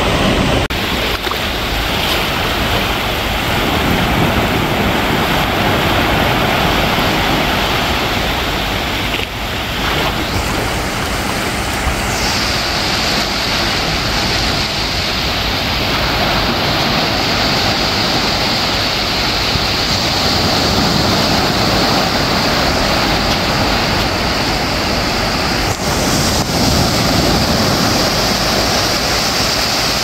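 Small waves washing in and out over a sandy shore in shallow water: a steady rush of surf.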